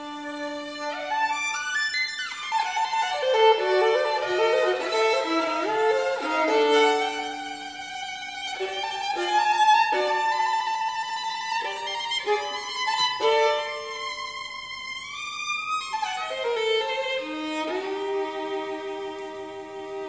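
Solo violin played with the bow: a fast run sweeping downward, a stretch of quick notes, then a run climbing high and falling back before settling on a held note near the end.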